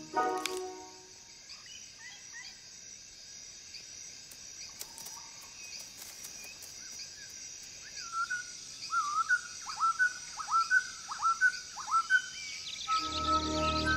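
Forest ambience: a steady high insect drone with faint bird chirps, then a run of about seven loud, downward-sweeping whistled bird calls over the last few seconds. A short music phrase ends just after the start, and low music comes in near the end.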